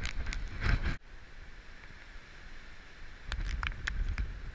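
Strong gusty wind buffeting the camera's microphone as a low rumble with scattered sharp clicks. It drops abruptly to a quieter hiss about a second in and picks up again about three seconds in.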